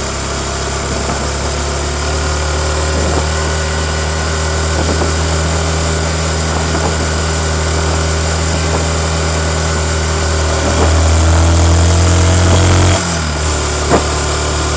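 Stock Yamaha MT-15's 155 cc liquid-cooled single-cylinder four-stroke engine running under way, its note rising slowly as the bike gathers speed and getting louder, then dropping suddenly near the end, as at a gear change or closing the throttle.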